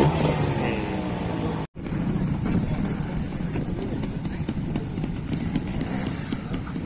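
Trials motorcycle engine running as a rider works the bike over a rock step, with a brief dropout at a cut about two seconds in.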